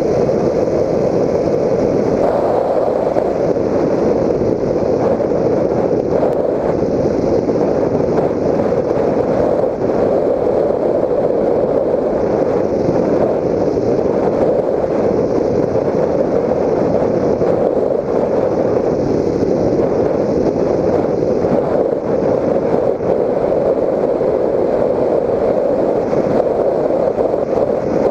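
Steady in-flight rushing drone of a Raptor 1600 FPV model plane, its stock electric motor and the airflow picked up by the onboard GoPro Hero 3, with no change in pitch or level.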